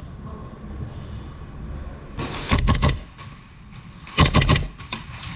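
Two quick strings of airsoft gas blowback gunfire, several sharp cracks each, about two seconds in and again just past four seconds, over a low rumble of movement.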